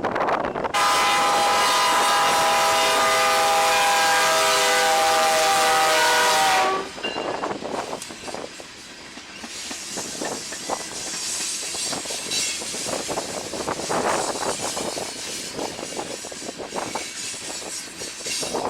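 BNSF freight locomotive air horn sounding one long chord for about six seconds, its pitch sagging slightly just before it cuts off. Then the train's cars roll past, wheels clacking irregularly over the rails.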